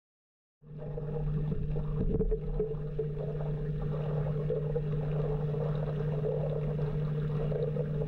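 Silence for about half a second, then a steady low ambient music drone fades in and holds, a sustained hum with a hazy wash over it.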